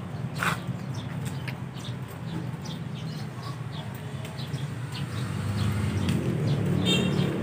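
Small birds chirping in short, scattered calls over a steady low engine hum that grows louder near the end.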